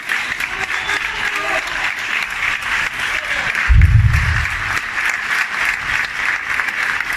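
A large audience applauding, many standing: dense, steady clapping throughout. A brief low rumble sounds about halfway through.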